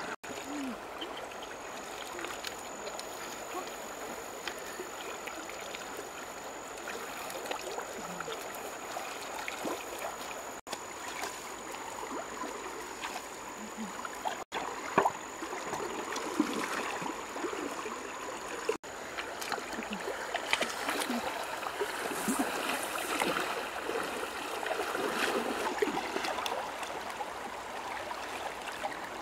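Shallow river running over stones, with scattered small splashes in the water.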